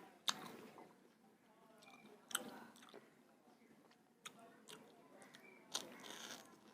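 A person chewing food close to the microphone: quiet chewing with three short, louder bites or mouth sounds.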